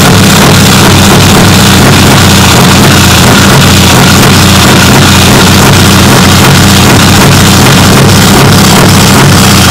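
Scania V8 diesel truck engine running steadily and loud through its side-exit exhaust pipe, with an even low pulsing throb.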